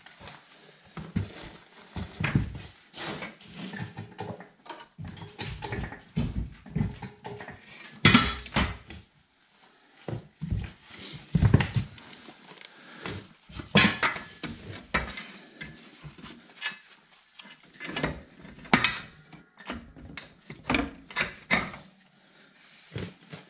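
Irregular knocks, clunks and scrapes of metal as the split tractor's engine is jacked up and positioned on its stand.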